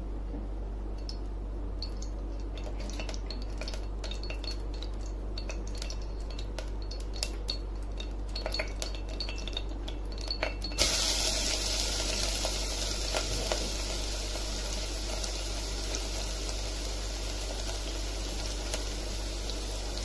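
Oil heating in a steel pressure cooker, with scattered crackles and short metallic pings, then about eleven seconds in a sudden loud sizzle as onions go into the hot oil and keep frying steadily.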